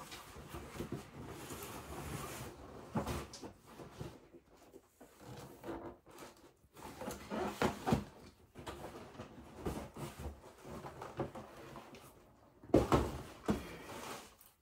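Cardboard shoe boxes being slid out of a large cardboard shipping carton and set down on a wooden floor: rustling and scraping cardboard with scattered knocks, the loudest knock near the end.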